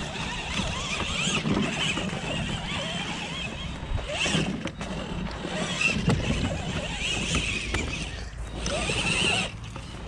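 Electric drive motor and geartrain of a 1/5-scale Redcat Clawback RC crawler whining as it crawls over loose dirt. The pitch rises and falls with the throttle, louder in several surges.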